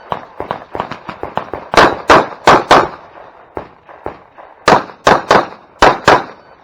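Rapid pistol fire from a Glock during a Carry Optics stage run: quieter shots at first, then loud shots in quick pairs and threes from about two seconds in, each about a third of a second apart.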